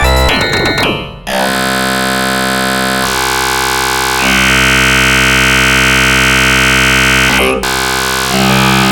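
Dense, distorted MIDI synthesizer music in the 'dark MIDI' style, from a remix of a Samsung ringtone: thick sustained chords of many stacked notes. The music dips briefly about a second in, and a louder, harsher chord comes in near the middle and cuts off sharply about seven and a half seconds in.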